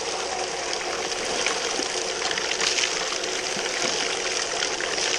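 Water rushing steadily through a two-tier gold highbanker's trommel and sluice, with the steady hum of its pump underneath.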